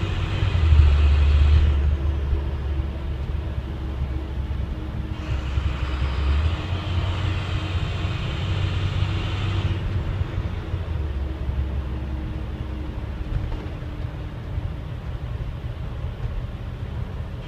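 Diesel school bus driving down the road, heard from the driver's seat: a steady low engine and road rumble, with a hiss that comes and goes twice.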